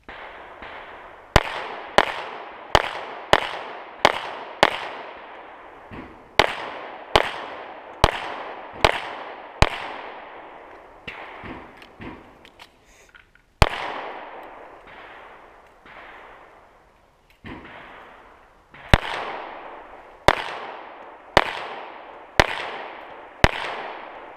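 Pistol fired in quick strings, shots roughly two-thirds of a second apart with pauses of a few seconds between strings, each shot trailing off in a short echo. Fainter shots are heard between the loud ones.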